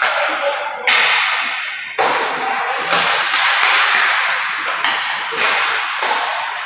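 A string of sharp cracks and slaps of hockey sticks and puck on the ice and boards, about one a second, each ringing on in the echo of the indoor rink.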